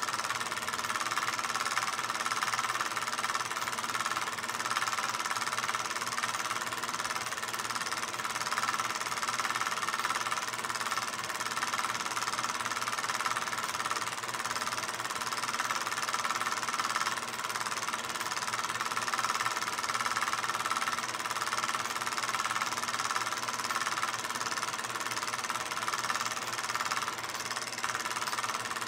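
16mm film projector running: a steady mechanical whir over film hiss, with a constant high hum.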